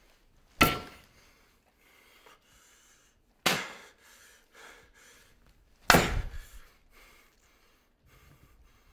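Three heavy blows of a frying pan striking a body, roughly three seconds apart, each a sharp thud with a short metallic ring; the third is followed by a quick run of smaller knocks.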